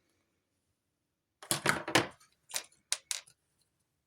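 Handling noise from small objects: a short burst of clattering about a second and a half in, then three sharp clicks.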